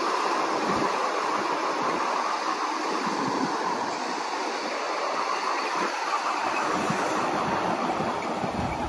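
A long rake of empty wire-mesh sugarcane bins on a narrow-gauge cane railway rolling past, the steel wheels on the rails making a steady running noise.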